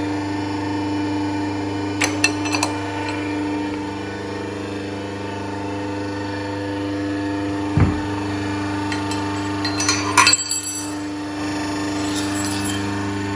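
Steady electric hum of a CB25 hydraulic rebar cutter-bender's single-phase motor and pump, with sharp metallic clinks and knocks about two seconds in and again around ten seconds. A single low thump comes near eight seconds.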